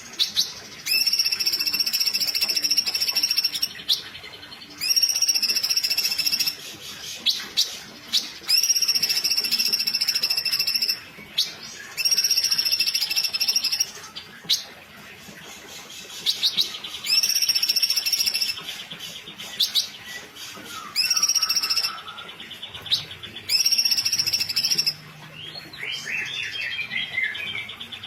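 Female cucak cungkok singing in tightly packed rapid bursts: a string of loud, buzzy trills, each one to three seconds long, repeated with short pauses. Lower, falling chirps come in between near the end.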